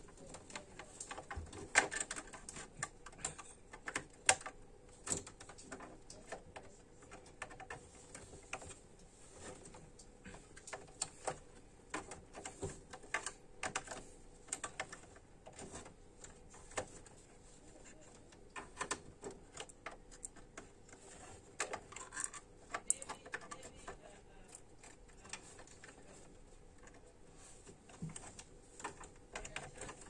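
Irregular small clicks and taps of hands handling plastic cables, clips and parts inside an open desktop computer case, the loudest a couple of sharp clicks about two and four seconds in.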